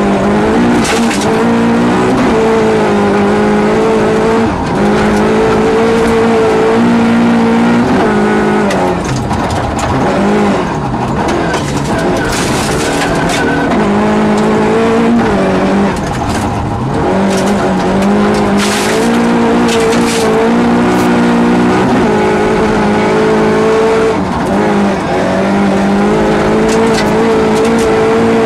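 Rally car's engine heard from inside the cockpit, revving hard at full throttle and climbing in pitch, then dropping back at each gear change several times over. Gravel stones crackle and rattle against the car's underside throughout.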